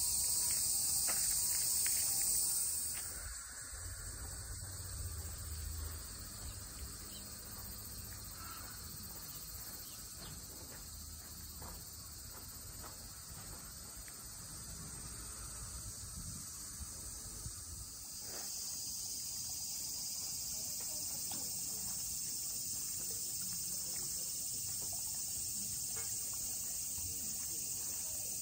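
Steady high-pitched insect chorus in the trees. It is loud for the first few seconds, drops back after about three seconds, and swells again about two-thirds of the way through.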